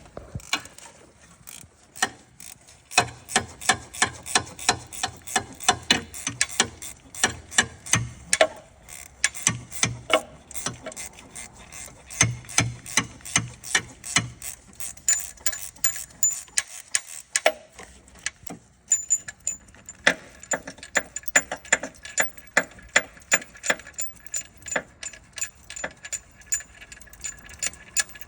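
Hand ratchet wrench clicking in rapid, regular strokes while bolts on the engine's timing cover are being loosened, with a short pause about two-thirds of the way through.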